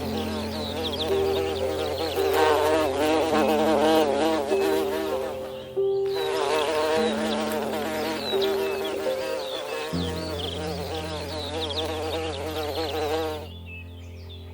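Insects buzzing, a wavering drone over slow held music notes; the buzzing breaks off briefly about six seconds in and stops near the end.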